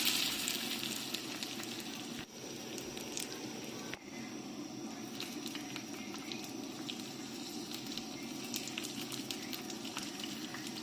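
Hot oil sizzling and crackling in a batch of homemade chili oil. It is loud at first and dies down over a couple of seconds to a steady sizzle with scattered crackles.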